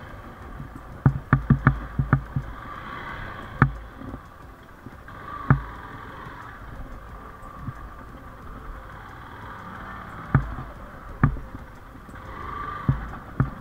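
Yamaha motorcycle engine running low and slow over rough ground. Sharp knocks and thumps come as the bike jolts over loose rocks and dirt: a quick cluster early, then single knocks every few seconds.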